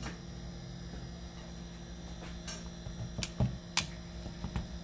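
Bosch GWS 9-125 S angle grinder's motor running with a steady hum, with two sharp clicks about three seconds in. The grinder stays on with no way to switch it off, which the repairer puts down to a faulty on/off switch.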